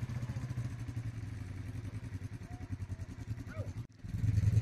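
Quad bike (ATV) engine running steadily at low speed, a rapidly pulsing hum. It drops out for a moment near the end, then comes back louder.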